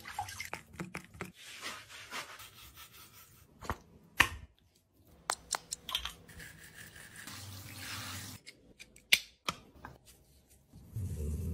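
Quiet grooming sounds: scattered small clicks and taps of hands handling a dog's toothpaste tube and paw, with a few seconds of soft rubbing in the middle. A dog's low growl starts near the end.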